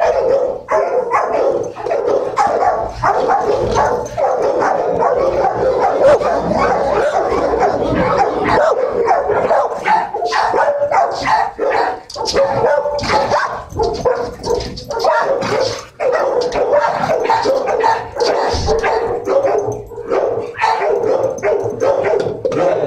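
Kenneled shelter dogs barking without let-up, many barks overlapping with hardly a gap.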